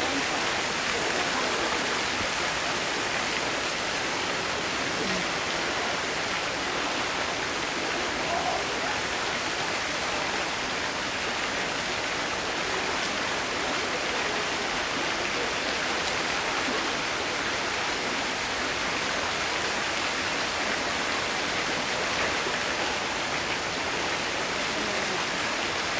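Water falling and splashing steadily into a pool, an even rushing noise with no change throughout.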